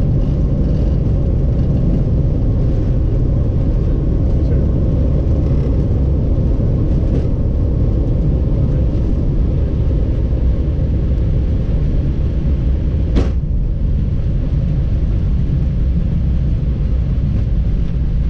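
Cockpit noise of an Airbus airliner rolling out along the runway just after touchdown: a loud, steady low rumble, with a single sharp click about two-thirds of the way through.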